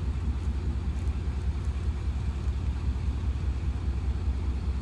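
Diesel locomotive engine idling: a steady low rumble with a fine regular pulse.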